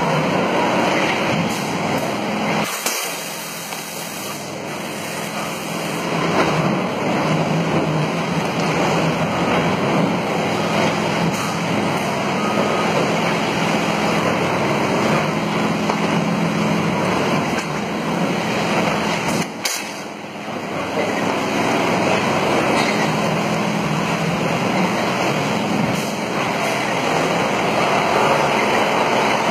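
Jinlun spindleless veneer peeling lathe running, peeling a log into a continuous veneer sheet: a dense, steady machine noise with a low motor hum, easing off briefly twice.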